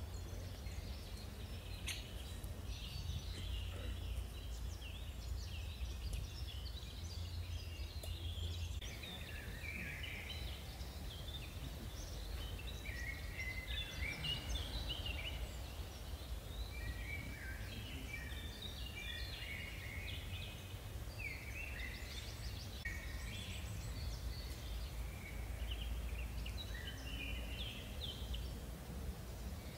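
Small birds chirping and twittering in quick, overlapping calls, busier from about nine seconds in, over a steady low rumble.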